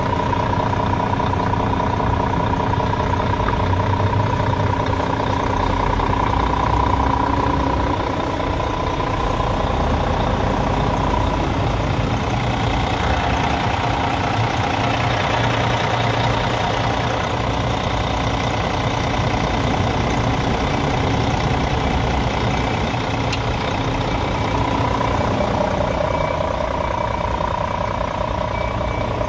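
Scania R truck's diesel engine idling steadily, with a faint whine that fades out partway through and comes back near the end.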